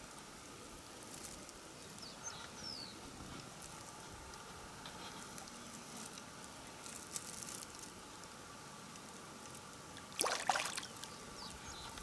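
Quiet waterside ambience with a faint trickle of water and a few short, high, falling bird chirps; a brief louder rush of noise about ten seconds in.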